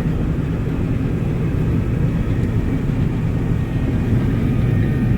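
John Deere 9750 STS combine running steadily while harvesting wheat: an even, low diesel engine and machinery drone with no change in pitch.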